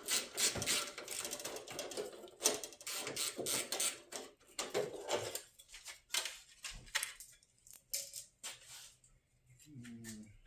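Runs of quick clicks and light metallic knocks from hand tools, bolts and washers as the radiator mounting bolts are worked loose. The clicking is dense for the first few seconds, then thins to scattered taps.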